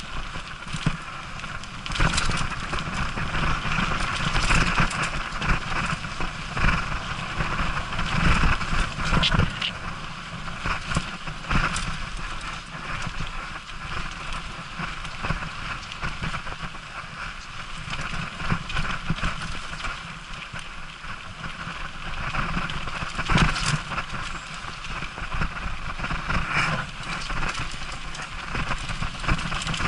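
Mountain bike riding fast down a dirt trail: tyres rolling over dirt and roots, with a constant run of irregular rattles and knocks from the bike over bumps, and wind rumbling on the microphone.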